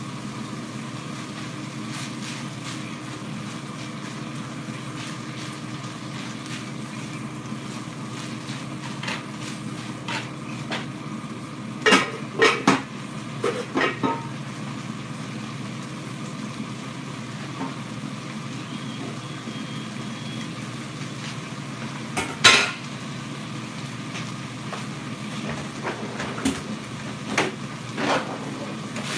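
Metal clinks and clatter of a utensil against a skillet and pot, in two short clusters about twelve and fourteen seconds in, one sharp clank about twenty-two seconds in and a few lighter knocks near the end, over the steady sizzle of ground sausage and onions frying in the skillet.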